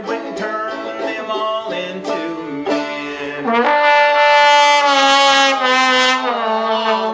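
Five-string banjo picking, then about three and a half seconds in a trombone comes in with one long held note that is louder than the banjo and runs on to the end.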